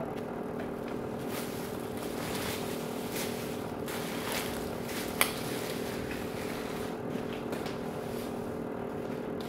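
Plastic parts of a Tefal garment steamer being handled and fitted together: rustling and light clicks, with one sharp click about five seconds in, over a steady hum.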